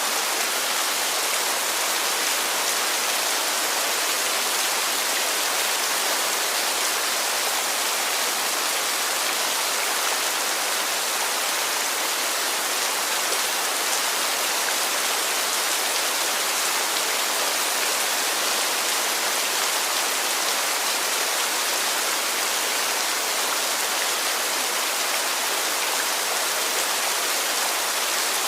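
Heavy rain falling steadily, an even hiss of rainfall with no breaks or changes.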